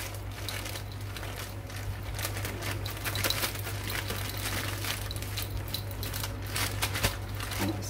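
Plastic zip-top bag crinkling continuously and irregularly as a fish is worked around in flour inside it.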